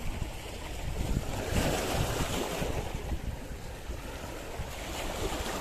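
Small sea waves washing against a rocky shore, swelling louder for a second or so near the middle, with wind buffeting the microphone.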